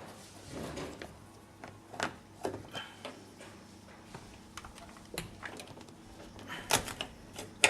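Scattered clicks and knocks of a screwdriver and plastic door trim being handled as the trim screws come out, with a couple of sharper clacks near the end.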